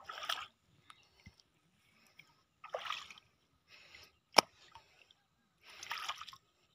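Footsteps in flip-flops on wet mud: a few short, wet scuffs a second or two apart, with one sharp slap about four and a half seconds in.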